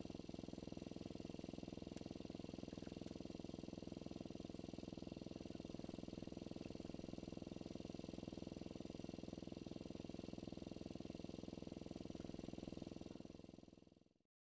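A faint, steady engine hum, like a small motor idling, that fades out near the end.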